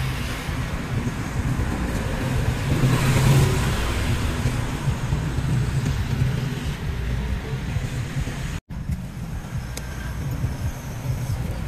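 Steady street traffic from passing motorbikes and cars, swelling louder about three seconds in as a vehicle goes by. The sound drops out for an instant about two-thirds of the way through.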